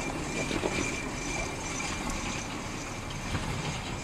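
Quarter-scale electric streetcar running along its track: a steady rolling noise of wheels on rails, with a few light clicks.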